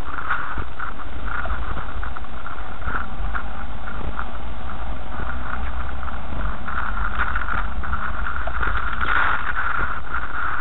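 Car driving over a rutted, muddy dirt track, heard from inside the car: a steady low rumble with irregular knocks and rattles as it jolts over the ruts.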